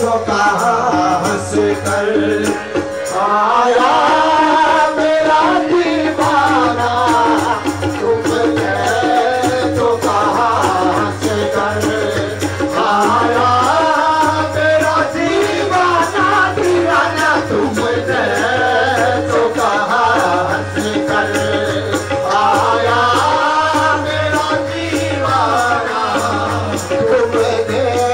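Qawwali music: harmonium playing steady held chords and melody, a dholak drumming, and a lead voice singing long, gliding phrases over them.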